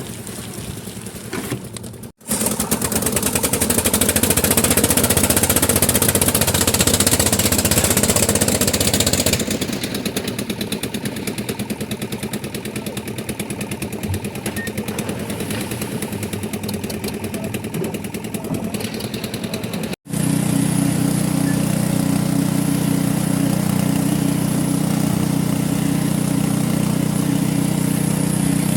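Concrete mixer machine's engine running steadily with machinery noise. The sound breaks off abruptly twice and comes back at a different level; the last part is a steady low engine drone.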